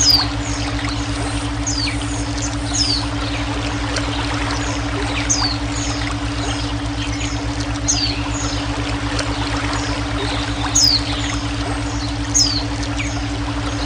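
Running water hissing steadily, with a bird's short high chirps that sweep downward, repeated every second or two. Under them runs a steady low pulsing hum of brainwave tones.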